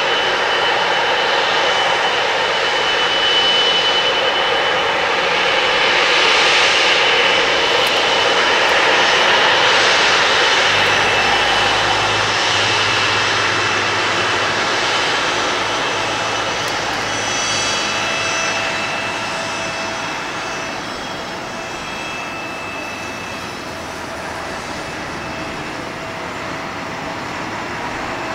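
Boeing 777-200ER's General Electric GE90 turbofan engines running at taxi power as the airliner rolls past: a steady rushing hiss with a high whine, loudest about a third of the way in and slowly easing toward the end.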